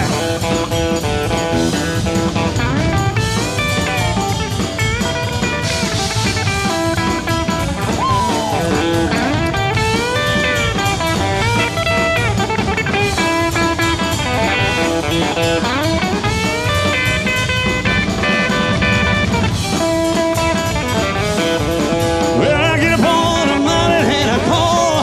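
Live rock-and-roll band playing an instrumental break: a lead electric guitar with bending notes over drums, bass and keyboards.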